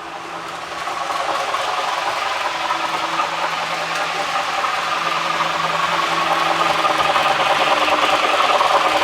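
HO-scale MTH GS4 4-8-4 model steam locomotive running at top speed, a steady mechanical rushing and rattle of wheels and drive on the track. It grows louder from about a second in and keeps building as it comes closer.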